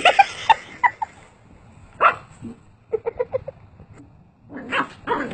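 Small puppy yapping and barking in short, high calls, with a quick run of about five yips about three seconds in.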